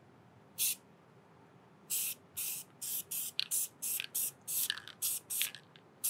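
Aerosol can of spray adhesive being sprayed in short hissing bursts: one brief spray, then from about two seconds in a quick run of about a dozen short squirts.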